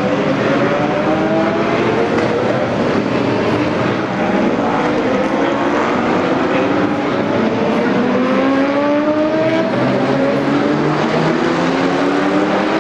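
A pack of GT race cars, Mercedes-Benz SLS AMG GT3s and Porsche 911 GT3s among them, running hard through a corner. Several engines are heard at once, each rising in pitch as the cars accelerate, one car after another.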